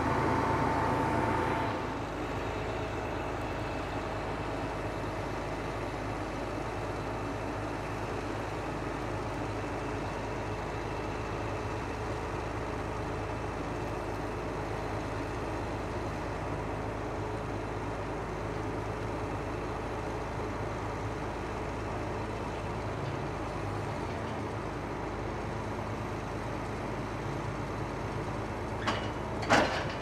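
John Deere 8335R tractor running steadily, a low, even engine drone with a few held tones. A few brief knocks come near the end.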